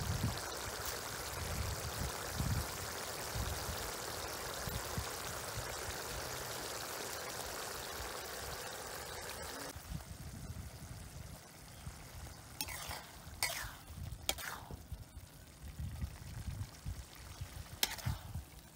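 Minced pork sauce bubbling and sizzling in a wok over a wood fire, a steady hiss that cuts off after about ten seconds. Then it goes quieter, with a few light clinks of a spoon or ladle.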